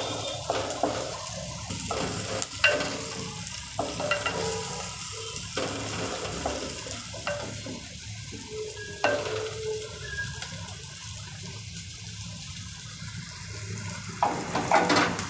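Chopped onions sizzling in hot oil in a clay pot, stirred with a wooden spatula that scrapes and knocks against the pot through the first half. After that the stirring stops and a quieter steady sizzle is left, with a brief louder knock near the end.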